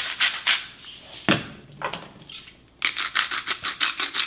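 Hand-twisted salt and pepper grinders grinding in quick rasping clicks, with a single knock about a second in and a second run of grinding starting about three seconds in.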